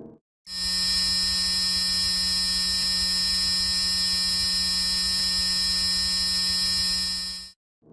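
Synthesized space-sound drone: a steady electronic buzzing hum made of many unchanging tones stacked from low to very high. It starts abruptly about half a second in and cuts off just before the end.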